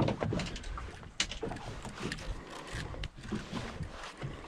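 Open-boat noise at sea: a low wind rumble on the microphone with a few sharp knocks, the loudest about a second in.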